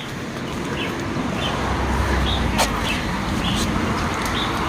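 A small bird chirps about twice a second over a steady rush of road traffic, with a low vehicle rumble swelling briefly near the middle.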